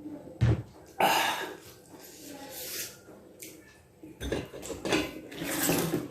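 Dishes and cutlery clattering while eating: several irregular knocks and scrapes of a plate and utensils.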